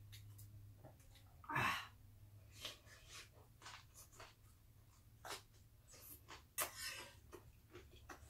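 A person eating at close range: chewing and mouth sounds with many short clicks. A louder short noisy rush comes about a second and a half in and another around seven seconds, over a low steady hum.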